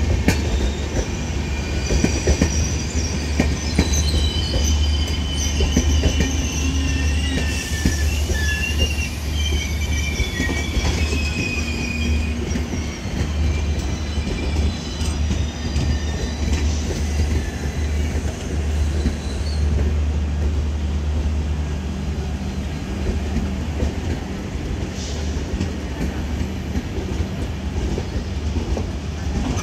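Indian Railways LHB passenger coaches rolling past on the track: a steady low rumble with wheels clicking over rail joints. High-pitched wheel squeals come and go through the first half.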